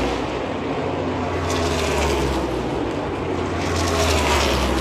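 NASCAR stock car V8 engines running on the oval, heard from the grandstand, with a falling pitch as a car passes about two to four seconds in.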